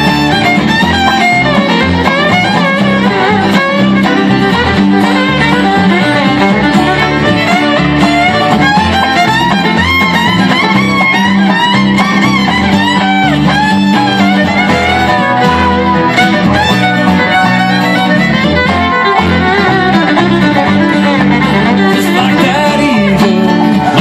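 Live bluegrass band playing, with the fiddle taking the lead melody over acoustic guitar, banjo, dobro and upright bass.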